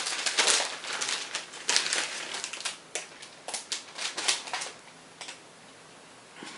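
Computer parts being handled: a quick run of clicks, taps and crinkling rustles that dies away after about five seconds.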